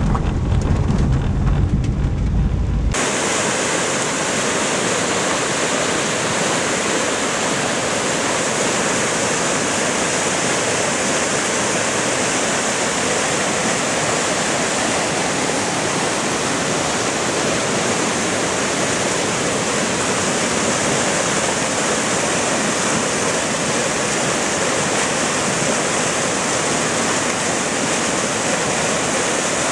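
Brown floodwater rushing through a stream swollen by a thunderstorm downpour: a loud, steady rush of churning water. For about the first three seconds, a low rumble of a car driving along a wet road is heard instead, and it is cut off suddenly when the water sound takes over.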